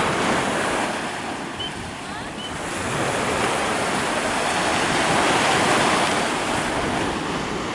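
Waves washing onto the shore, swelling louder partway through, with wind on the microphone.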